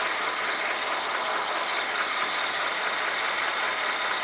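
Gas-fired 16mm-scale Roundhouse Engineering Taliesin live-steam locomotive running steadily on a rolling road: a fast, even stream of exhaust beats mixed with steam hiss.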